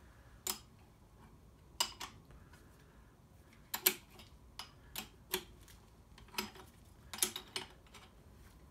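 Sharp metallic clicks and clinks of hand tools on steel, about a dozen at irregular intervals, a couple of them doubled.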